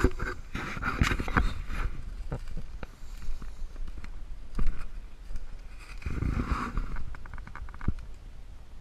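Close handling and rustling noise: irregular rubbing, scraping and knocks right at the microphone, with a louder rustle about six seconds in and a quick rattle of clicks just after it.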